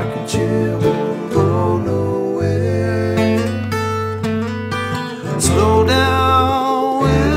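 A bluegrass band playing a slow song: acoustic guitar strumming, mandolin picking and long electric bass notes under several men singing.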